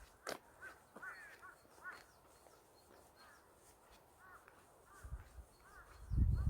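Wild birds calling in a mountain forest: many short, repeated arched call notes with fainter thin high notes. A loud low rumble of wind on the microphone comes in near the end.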